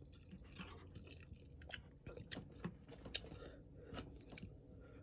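Faint chewing of instant ramen noodles: irregular small wet smacks and clicks of a mouth eating.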